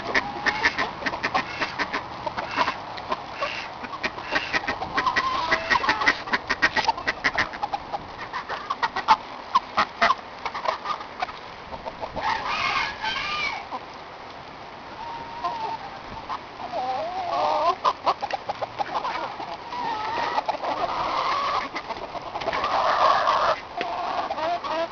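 Backyard chickens clucking, with many short sharp clicks through the first ten seconds or so. The clucking grows busier and louder in the last few seconds as the flock crowds together.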